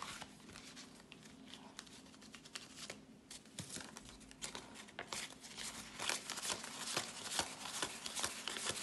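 Jamaican banknotes being handled and counted by hand: quick, crisp rustling and flicking of the bills, busier in the second half.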